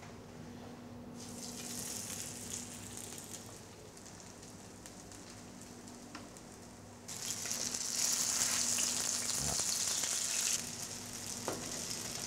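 Slices of millas, a set cornmeal porridge, sizzling as they fry in a frying pan. The sizzle grows much louder about seven seconds in and eases off a few seconds later.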